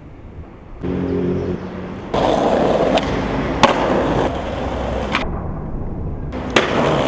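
Skateboard wheels rolling over rough pavement in a few short takes that start and stop abruptly, with several sharp clacks of the board popping and landing.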